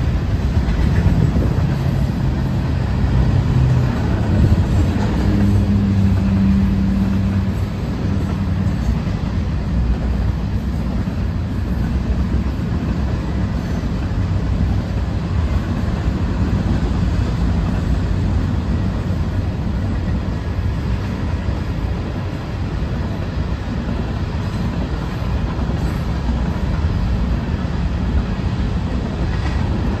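Manifest freight train of tank cars rolling past, a steady low rumble of wheels on the rails, with a low hum over the first several seconds.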